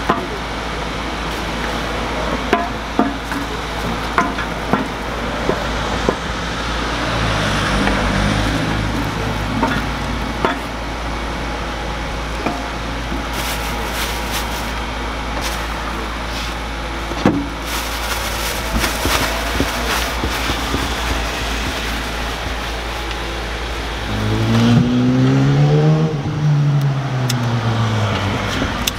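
Plastic takeout bag crinkling as it is handled and filled, over a steady background hum with scattered clicks. Near the end a vehicle engine rises and falls in pitch as it passes, the loudest sound.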